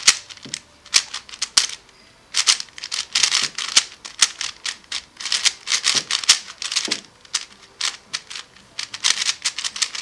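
Stickerless QiYi WuQue 4x4 speed cube being turned fast by hand: plastic layers clacking in quick runs of clicks, with a brief pause about two seconds in. The cube is brand-new and not yet broken in.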